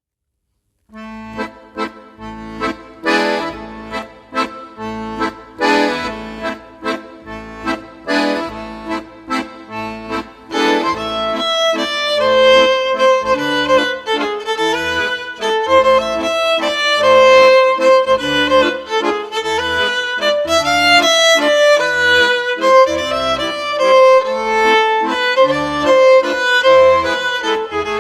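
Background music: an instrumental tune over a pulsing bass line, starting about a second in and growing fuller and louder about ten seconds later.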